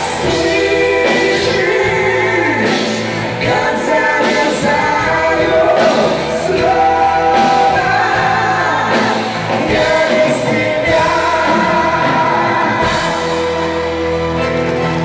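Live band playing a slow rock ballad with a singer's voice over it, recorded from the audience in a concert hall.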